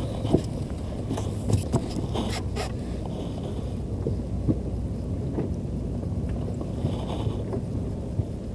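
Fishing boat's engine running with a steady low hum, with wind on the microphone and a few light knocks in the first three seconds.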